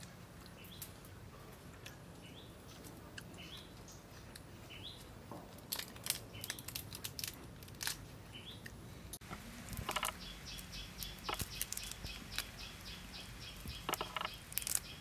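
Birds chirping with short rising calls, then a fast run of repeated notes. Over them come bursts of crackling clicks as the shells of grilled prawns are cracked and peeled by hand.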